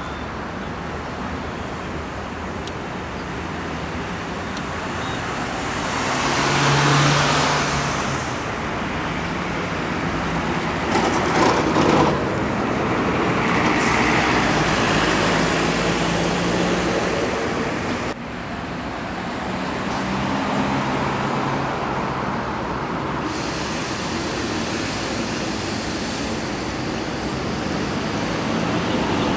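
Road traffic on a toll road: buses and other vehicles driving past with engine hum and tyre noise. One vehicle passes louder about seven seconds in, and a few more swell and fade after it.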